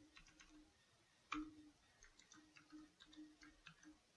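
Faint computer keyboard typing: a run of soft, irregular key clicks, with one louder keystroke about a second in.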